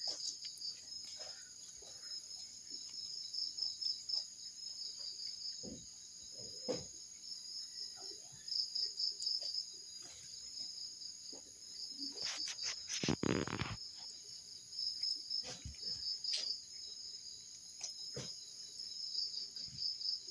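Crickets chirping in a steady, pulsing high trill, with a few faint knocks and one short, louder noise about two-thirds of the way through.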